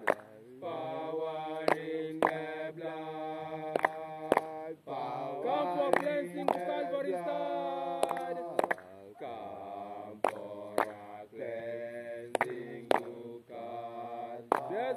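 Voices chanting a slow Rastafari hymn in long held notes, over sharp beats that come in pairs about every two seconds.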